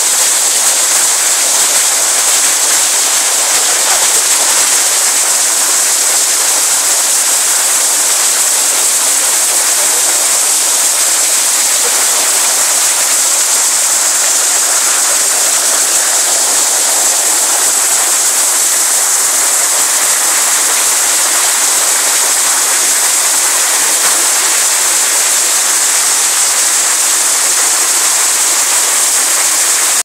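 Rushing water from a stream and waterfall: a steady, loud, bright hiss that never lets up.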